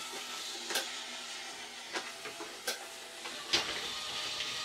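Battery-operated 3D-printed bump-and-go robot toy running, a steady whir from its drive with four sharp clicks at uneven intervals from its built-in clicking mechanism.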